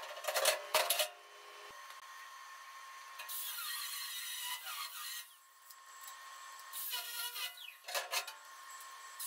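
Metalwork on a steel loader bucket: a few sharp metal knocks in the first second, then a steady hiss of spark-throwing work at the bucket's edge for about two seconds, and more knocks and short bursts near the end.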